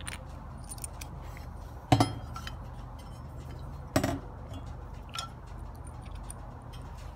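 Small metal hardware clinking and knocking as flanging washers and a metal strut bracket are handled and fitted over anchors in a metal-skinned wall panel. Two sharp knocks come about two and four seconds in, with light clicks between.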